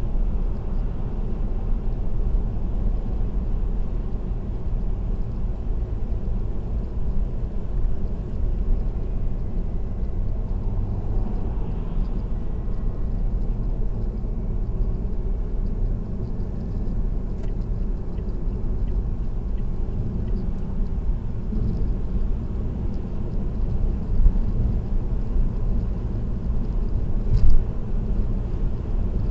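Steady low rumble of a car cruising at expressway speed, tyre and engine noise heard from inside the cabin, with two brief ticks near the end.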